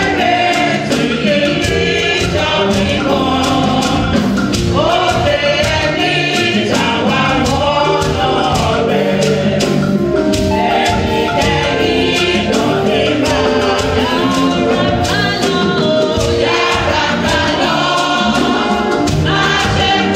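Church choir singing a gospel song with a live band of keyboard, guitar and drums, over a steady percussion beat.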